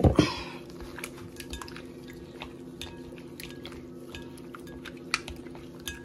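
A gloved hand mixing raw shrimp in milk and seasoning in a ceramic bowl: scattered light taps and wet clicks against the bowl, after a louder clatter right at the start. A steady low hum runs underneath.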